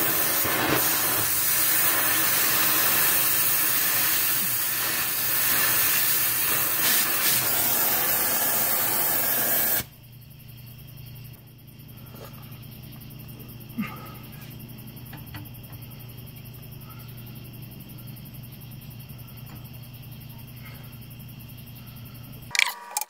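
Oxy-acetylene cutting torch flame hissing steadily as it heats the rusted exhaust pipe, stopping abruptly about ten seconds in. After that a quiet low hum remains, with a few light metallic clicks from hand tools on the pipe.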